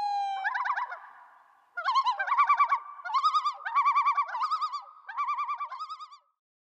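Common loon calling: a long wail ends about half a second in, followed by several bursts of rapid quavering tremolo calls, which stop about six seconds in.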